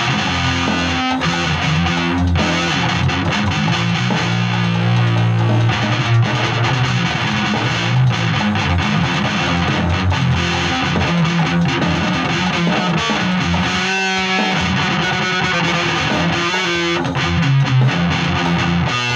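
Distorted electric guitar playing heavy riffs with sustained low notes, and bent, wavering notes about two-thirds of the way through.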